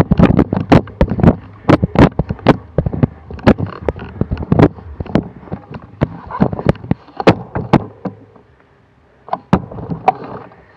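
Cyclocross bike jolting over rough grass: irregular sharp knocks and rattles several times a second over a low rumble, dropping away for about a second near the end.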